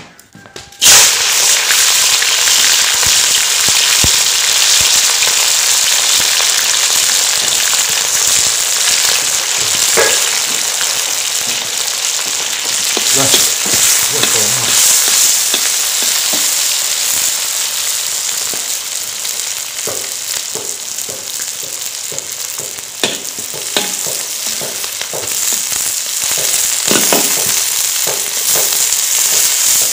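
Sliced green peppers frying in hot oil in a cast-iron wok. A loud sizzle starts suddenly about a second in and runs on steadily as they are stir-fried, with scattered clicks and scrapes of the metal spatula against the wok.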